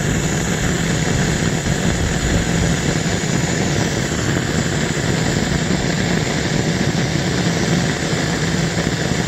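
Gas torch flame burning steadily, a continuous rushing hiss with a low rumble, as it heats a padlock.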